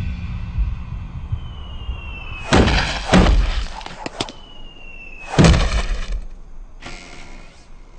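Two loud crashes with a breaking, smashing quality, about three seconds apart, each led in by a short falling whistle; a softer rushing noise follows near the end.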